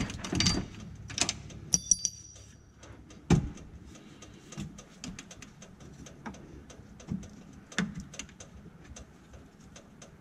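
Hands working on a golf cart's rear spring and bushing: scattered clicks and knocks of metal and rubber parts being handled, with a brief metallic ring about two seconds in and the loudest knock about three seconds in.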